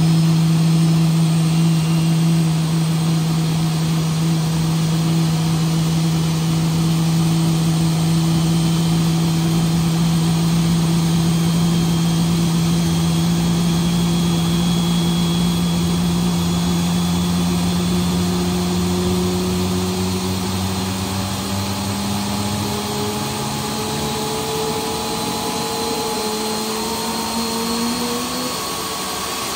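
Airliner jet engine being air-started from a ground air cart: a loud, steady drone whose pitch rises through the second half as the engine spools up toward idle, with a faint high whine climbing alongside.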